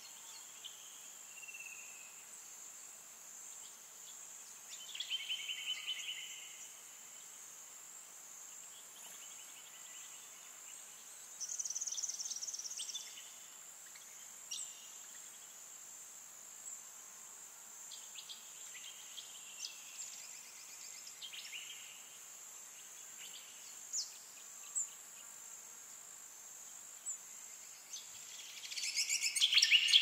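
Forest ambience: a steady high-pitched insect drone, with birds calling in rapid chirping trills now and then, the loudest bursts near the end.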